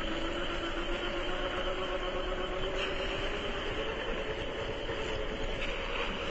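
Traxxas TRX-4 1/10-scale RC crawler's electric motor and drivetrain gears whining as it crawls, the whine rising a little in pitch about halfway through. The steady rush of a flowing creek runs underneath.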